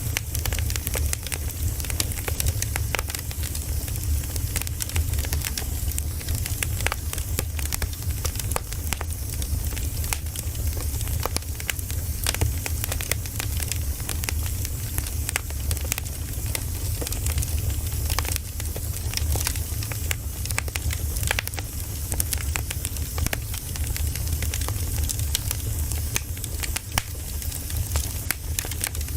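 Campfire crackling, the burning wood giving frequent sharp pops and snaps over a low, steady rumble of the flames.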